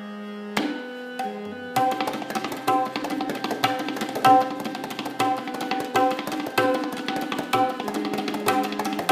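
A pair of tabla played by hand: two ringing strokes in the first second and a half, then a fast, dense run of strokes, the small dayan ringing at its tuned pitch and the bass bayan booming underneath.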